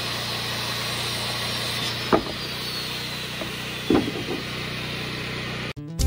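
A small engine running steadily at a constant pitch, with two sharp knocks of nailing into wooden wall framing about two and four seconds in and a few lighter taps after the second. The sound cuts off abruptly near the end.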